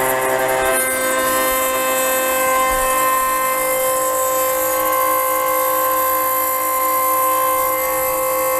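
6040 CNC router spindle running a 6 mm two-flute end mill through 12 mm aluminium plate: a steady, multi-tone machining whine with a hiss of cutting over it. The pitch shifts slightly about a second in.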